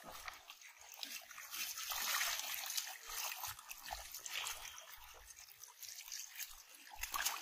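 Water trickling and splashing off a mesh fishing net on bamboo poles as it is lifted out of shallow muddy water, with small drips and splashes throughout, loudest about two seconds in.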